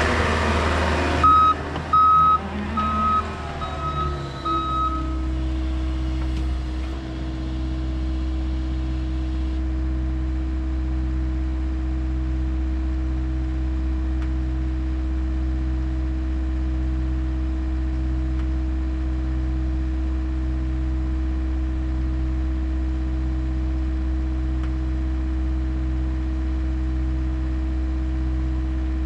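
John Deere 325G compact track loader reversing with its backup alarm beeping a handful of times in the first few seconds. The beeps stop and give way to a steady, low diesel engine idle with a slow, even throb.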